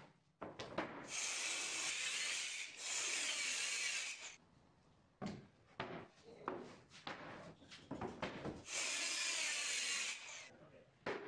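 Handheld electric power tool cutting into a laminated plywood panel: two runs, the first about three seconds long, the second just under two seconds near the end, with knocks of boards being handled in between.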